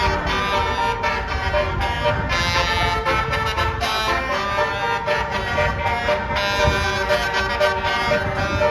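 A bus's Basuri telolet horn, a multi-tone musical air horn, playing a tune of held notes that shift in pitch, over the low rumble of the bus's engine.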